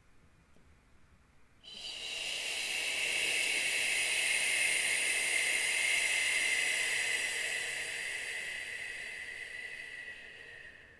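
A woman's long, slow exhale through the mouth as a hissing 'shh' sound, starting about two seconds in and fading gradually near the end: a pranayama exhale to help clear the lungs.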